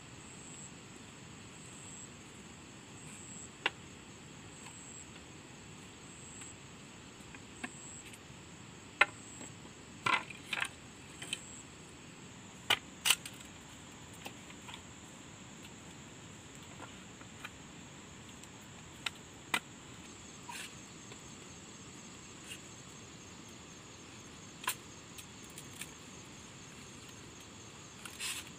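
A knife chopping into a bamboo pole gives scattered, irregular sharp knocks, thickest around the middle. Behind them a steady high insect drone runs throughout, pulsing at first.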